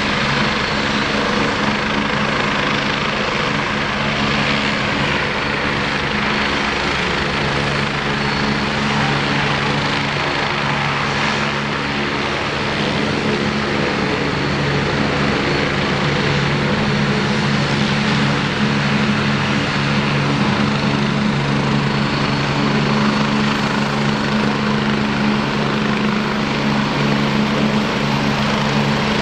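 Helicopter running with a steady, loud drone that holds constant pitch throughout.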